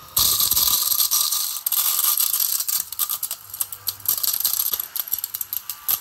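Battery-powered mini desk vacuum switching on and running with a loud high hiss and a faint steady whine, with many rapid clicks of grains of rice being sucked in; it cuts off at the end.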